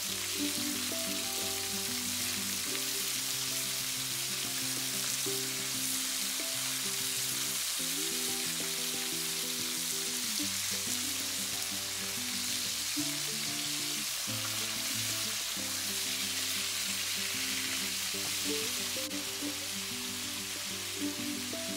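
Pork shoulder steaks sizzling steadily in hot oil in a frying pan as they are turned. Background music with held notes plays underneath.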